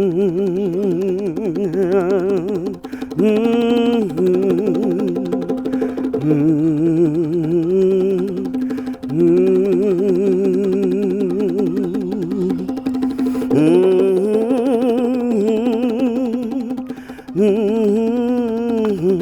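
Slow, wordless melody of long held notes with a wide vibrato, over a steady drone that holds one pitch throughout.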